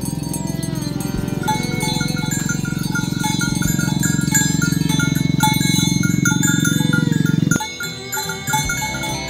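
Background music with a repeating chime-like melody and a heavy low layer that cuts off abruptly near the end, with cattle lowing faintly in the mix.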